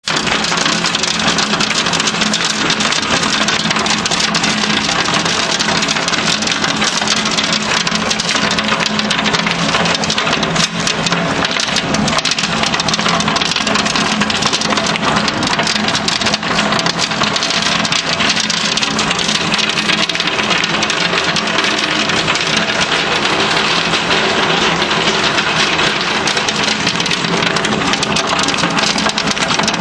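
Hailstones pelting down in a dense, unbroken clatter of countless small impacts, with a low steady hum underneath.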